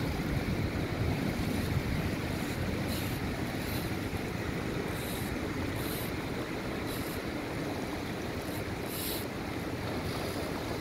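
Steady rushing of river water, with wind buffeting the microphone and a few brief higher hisses.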